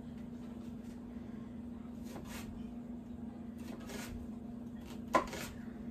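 Kitchen knife cutting onion on a cutting board: a few scattered slicing strokes and knocks, the loudest a sharp knock about five seconds in, over a steady low hum.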